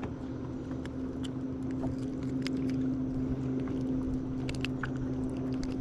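A boat motor running with a steady, even hum, with scattered faint clicks on top of it.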